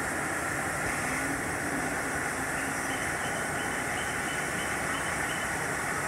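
Steady rushing background noise of a large indoor rainforest exhibit. Near the middle, a faint bird call repeats about eight short high notes in a row.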